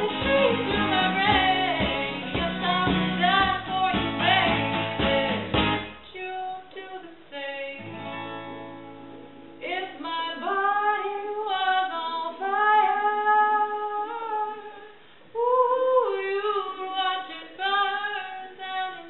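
A woman singing a pop song over steady djembe beats and a strummed acoustic guitar. About six seconds in the drum and strumming stop, a guitar chord rings out, and her voice carries on almost alone in long held notes.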